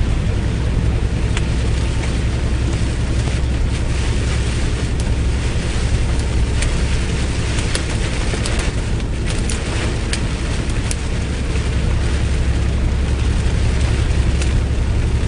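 Inside a semi truck's cab at highway speed in heavy rain: a steady low rumble of engine, tyres and wind, with a constant rush of rain and scattered sharp ticks of drops striking the windshield.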